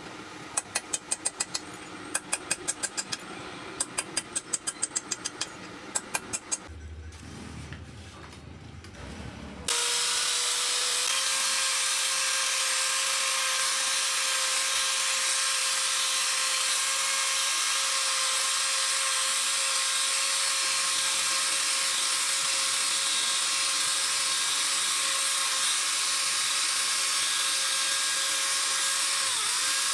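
A quick series of sharp clicks, then about ten seconds in an electric power tool starts suddenly and runs steadily with a constant whine.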